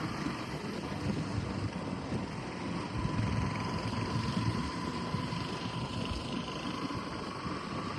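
A vehicle running steadily on the road, with rumbling engine and road noise.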